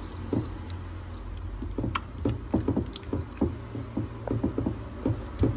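A hand squishing raw chicken pieces around in a thick, wet yogurt marinade in a glass dish: a run of irregular squelches, with a steady low hum underneath.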